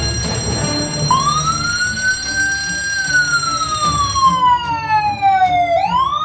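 Fire-engine siren wailing: it rises about a second in, slides slowly down, then rises again near the end, over background music.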